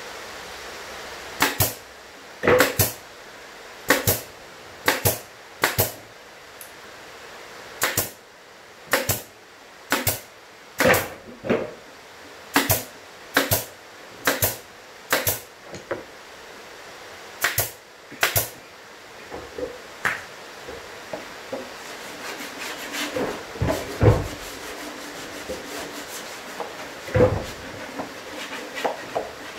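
Pneumatic brad nailer driving brads into a plywood speaker cabinet: about nineteen sharp shots in quick succession, roughly one a second, over the first eighteen seconds. After that come lighter knocks of the box being handled, with a heavier thump about twenty-four seconds in and another about three seconds later.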